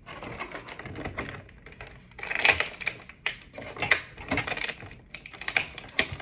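Clear plastic toy packaging crinkling and crackling as it is handled and opened, in uneven bursts of rapid crackles, loudest about two and a half seconds in and again just before the end.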